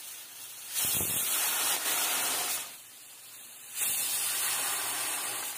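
Aluminium pressure cooker whistling: its weighted valve lifts and lets off steam in two hissing blasts, each a little under two seconds long, about a second apart. The cooker is cooking rice and has come up to pressure.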